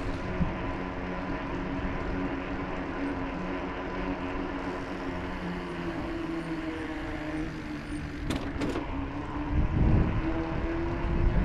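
A steady motor hum with a slowly shifting pitch over outdoor background noise. Two sharp clicks come about eight seconds in, and gusts of wind rumble on the microphone near the end.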